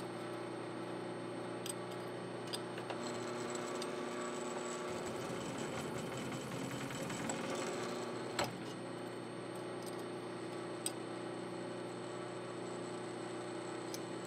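Small metallic clicks and scraping as a forged steel plate is handled and its drill chips are picked off, with a few sharp clinks and a rougher scratchy stretch in the middle, over a steady low hum.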